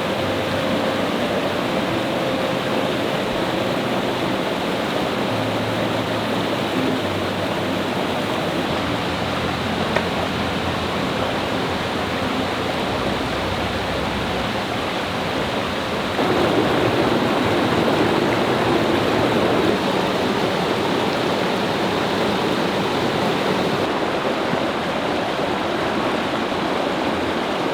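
Waterfall and mountain stream rushing steadily. It grows louder for a few seconds just past the middle, then settles back.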